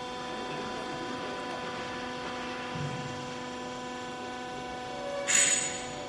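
Steady electric hum of a hydraulic baler's motor running idle, with a short, loud hiss about five seconds in.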